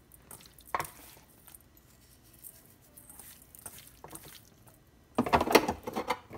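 Faint, scattered light clicks and taps of salt being added to sliced raw fish in a bowl.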